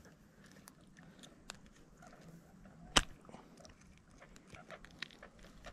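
Faint clicks and rustles of hands working a hook out of a small largemouth bass's lip, with one sharp click about three seconds in.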